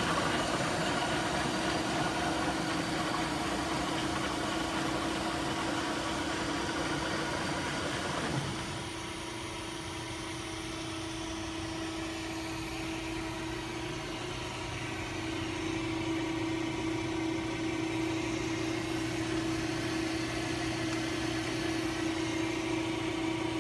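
Arpeco slitter rewinder running, its drive giving a steady mechanical hum with a constant whine. It drops in level about eight seconds in and comes up a little again later.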